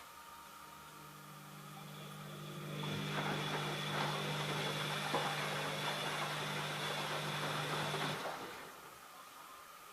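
ELIN A 100 E washing machine: a click, then its motor starts humming, builds up over about two seconds, runs steadily with a whirring noise and a high whine for about five seconds, then cuts off near the end and fades.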